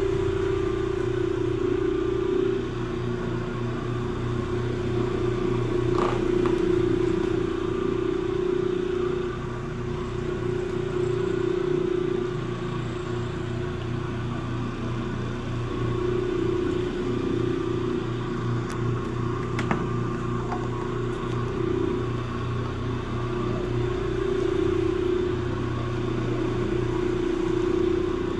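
Electric rotary floor machine running steadily, its pad scrubbing carpet for low-moisture carpet cleaning. The motor's hum swells and eases every few seconds as the machine is swept back and forth.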